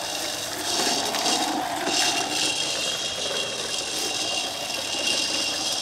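Battery-operated toy lawn mower playing its electronic engine-running sound effect while being pushed along; a thin steady whine joins about two seconds in.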